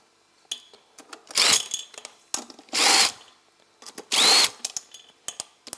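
Power tool run in three short bursts, each with a brief whine that rises and falls, with small clicks of tools and parts between them.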